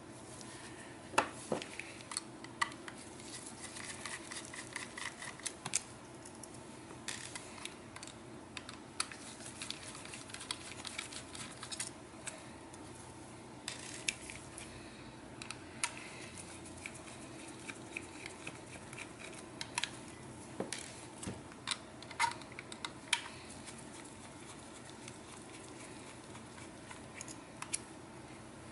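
Scattered small clicks and taps of hands handling a laptop hard drive, its metal bracket and screws, over a faint steady hum. Near the end a screwdriver works at the drive bracket.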